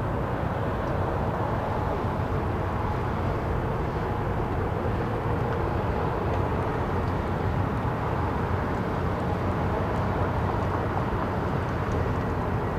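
Airbus A319 twin jet engines at takeoff thrust as the airliner accelerates down the runway and rotates near the end. The sound is steady.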